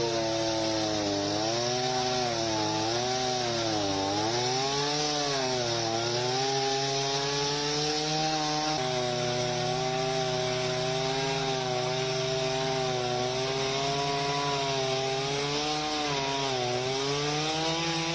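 Chainsaw running under load, its pitch dipping and climbing back again and again as it cuts through wood. The sound jumps abruptly about nine seconds in.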